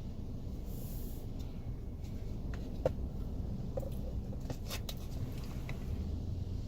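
A few faint small clicks and wet mouth noises as a mouthful of slush is swished around, over a steady low background rumble.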